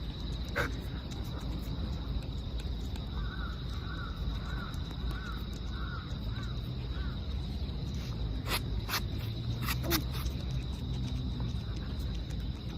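A bird calling about seven times in quick, even succession over a steady low outdoor rumble, with a thin steady high whine throughout and a few sharp clicks near the end.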